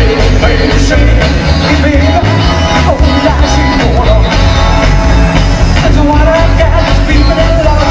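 Live rock band playing loudly: electric guitars, bass guitar and a drum kit, with a heavy, pulsing low end.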